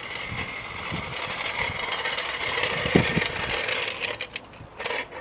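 A steel floor jack rolled across asphalt by its handle, its wheels rattling and grinding steadily, with a couple of knocks about three seconds in. It goes quieter near the end as the jack stops.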